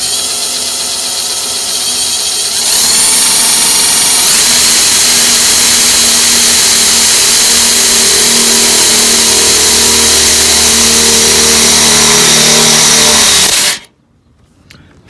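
Power drill running and boring a hole through the car's lip: a steady whine that grows louder about three seconds in and stops abruptly near the end.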